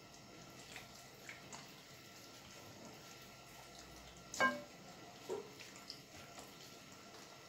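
Faint wet squelching and small smacks of gloved hands rubbing chermoula marinade into a raw whole chicken in a glass bowl. One louder brief knock comes about four and a half seconds in, and a smaller one a second later.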